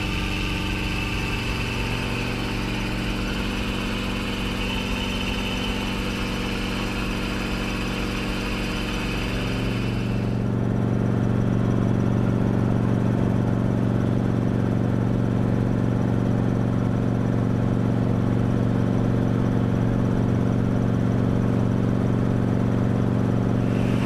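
Enstrom helicopter's engine and rotor running steadily, heard inside the small cockpit in flight. About ten seconds in, the sound becomes louder and deeper, with the higher whine dropping away.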